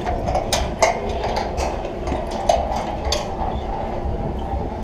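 Scattered sharp metal clicks and clinks of ropes-course safety harness hardware, its clips and overhead trolley, as the wearer moves across a plank bridge onto a metal platform, over a steady low rumble.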